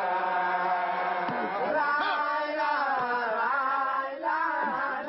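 Baye Fall devotees chanting a repetitive religious chant, voices together with a brief break about four seconds in.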